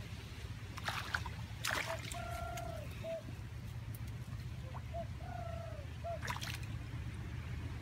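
Water splashing and trickling, with a few sharp splashes, over a steady low rumble. A short call that rises and falls in pitch repeats several times.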